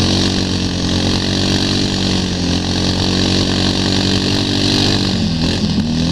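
ATV engine running at a steady pace while towing a skier, with a hiss over it; near the end its pitch dips and wavers as the throttle changes.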